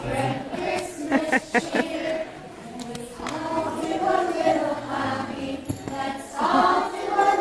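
A group of preschool children singing a Christmas song together.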